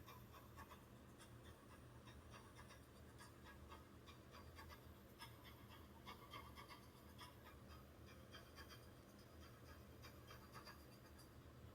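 Near silence: faint room tone with a low hum and scattered light ticks and scratches.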